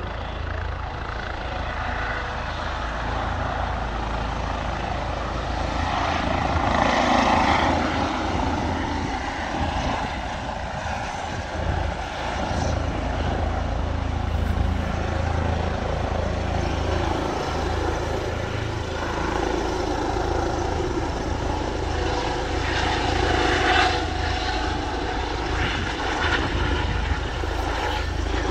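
Air ambulance helicopter flying low overhead: steady rotor and turbine engine noise that swells louder twice as it passes.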